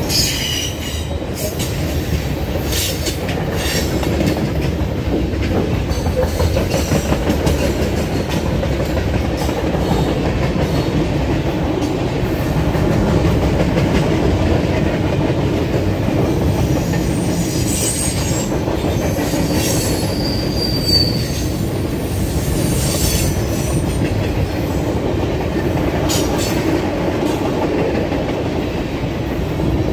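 Freight cars of a Norfolk Southern train rolling past: a steady rumble and clatter of steel wheels on the rails, with a few brief high wheel squeals, the clearest about twenty seconds in.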